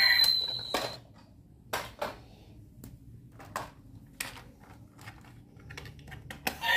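Hard plastic toy train being handled: scattered sharp clicks and knocks as it is picked up and turned over to reach the switch on its underside. A high electronic toy tone cuts off within the first second.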